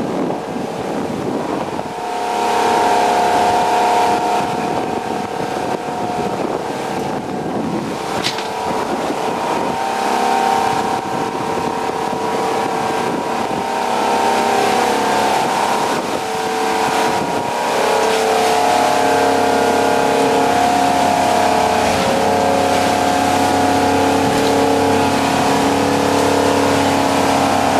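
Motorboat engines running steadily under way at cruising speed, with a droning hum that shifts a little in pitch, over a steady rush of wind and water.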